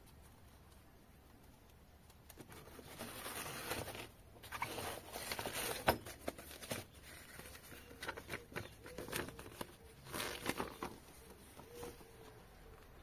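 Paper rustling and crinkling as instruction leaflets are pulled from a foam-lined carrying case and unfolded, with scattered light clicks and a sharp knock about six seconds in.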